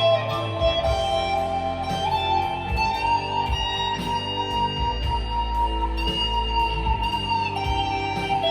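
Squier Classic Vibe Telecaster electric guitar played in A minor through a Blackstar V2 amp's modulation effect, with long held notes. The pitch of the held note drops about seven and a half seconds in.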